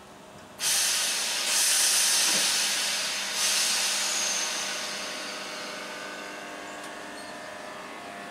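ScotRail electric multiple unit venting compressed air in a loud hiss that starts suddenly about half a second in, surges again about three seconds later, then slowly fades. A steady hum from the train's equipment runs underneath. The air release comes just before the train moves off and is typical of the air brakes being released for departure.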